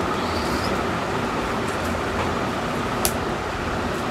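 Steady background noise with a low rumble, like road traffic, and a single sharp click about three seconds in.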